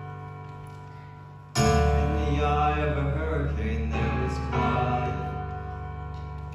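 Slow piano accompaniment playing sustained chords over a deep bass, fading gently, then a louder new chord entering about a second and a half in and ringing on.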